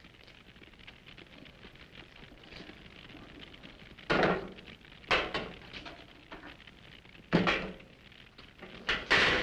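Quiet room hiss, then four short, sharp knocks spread over the last five seconds, each dying away quickly.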